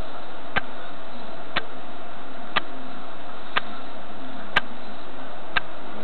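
Table clock ticking once a second, six crisp ticks over a steady hiss.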